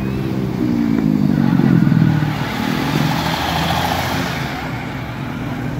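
A road vehicle's engine accelerating as it passes, rising in pitch and loudest about two seconds in, followed by a rushing noise as it goes by.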